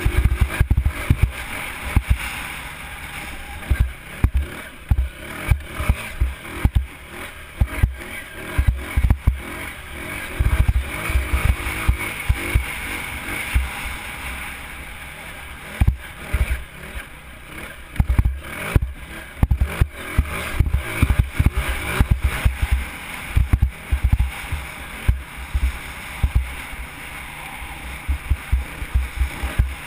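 Dirt bike engine running while the bike is ridden, heard through heavy wind buffeting on the camera microphone, which comes as frequent irregular low thumps.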